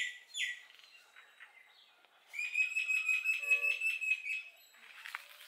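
Birds calling: a few short falling whistles at the start, then about two seconds of a rapid, steady high-pitched trill, the loudest sound here.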